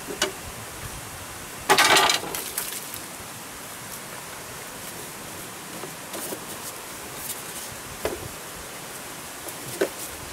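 Bamboo slat floor knocking and rattling as someone shifts their weight on it, the loudest a brief clatter about two seconds in, then single knocks near the end, over a steady outdoor hiss.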